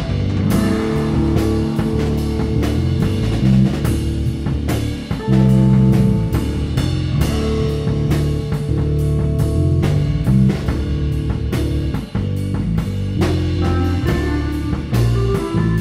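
Instrumental space-rock jam: electric guitar and bass over a steady rock drum beat.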